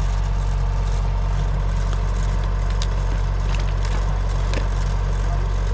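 Rice combine harvester's engine running steadily under load, with scattered crackles and clicks over it.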